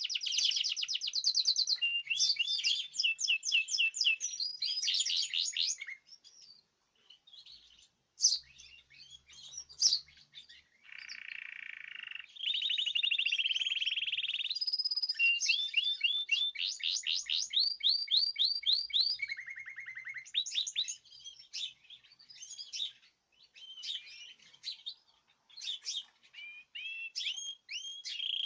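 Several caged songbirds singing together in long, rapid trills and runs of rising chirps. The song thins out about six seconds in, with two sharp clicks around eight and ten seconds, then picks up again.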